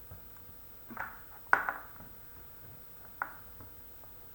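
A few light clacks of small hard plastic toy pieces knocking together as they are handled, about a second in, again half a second later, and once more near three seconds.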